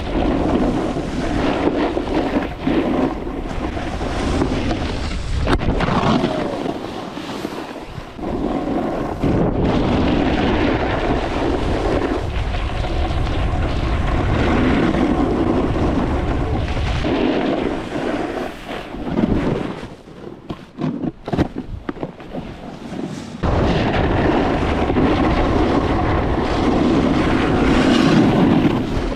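Wind rushing over a helmet-mounted camera's microphone, with the rumble and scrape of a snowboard riding over hard, icy snow during a run. The noise rises and falls with the riding and drops away for a few seconds about two-thirds through.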